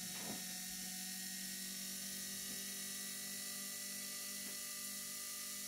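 Steady electrical hum with a faint high hiss from an AC motor driven by a homemade three-phase IGBT inverter, running while its DC bus voltage is turned up to about 135 volts.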